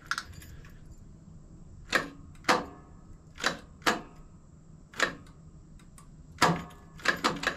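A series of sharp clicks and knocks, about eight spread over several seconds, as the key is turned on a Craftsman DLT3000 lawn tractor. No starter cranking or engine running follows: the tractor does not crank, a no-start fault he goes on to trace to its built-in starter solenoid.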